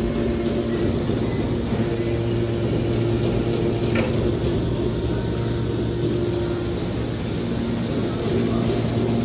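Steady drone of running industrial machinery: a constant low hum with a few steady tones over an even mechanical noise.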